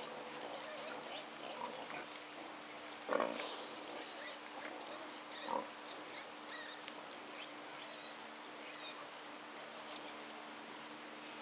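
Wild boar piglets grunting and squeaking while they root and forage. The loudest call comes about three seconds in, followed by short high squeaks later on.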